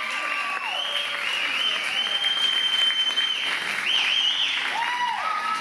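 Audience applauding and cheering at the end of a dance routine, with long, high-pitched whoops held over the clapping.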